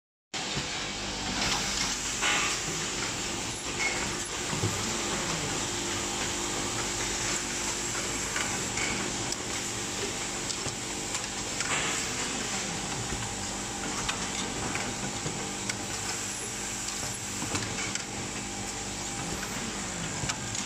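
Automatic insulin syringe barrel and needle assembly machine running: a steady mechanical hum and clatter, with a few brief louder sharp sounds every several seconds.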